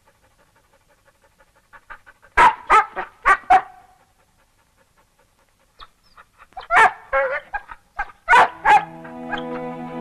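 A dog barking in two bursts of sharp, high barks, four quick ones and then a second cluster after a pause. Music with held notes comes in near the end.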